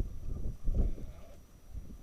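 Strong wind buffeting the microphone in uneven low gusts, loudest a little under a second in and easing off toward the end.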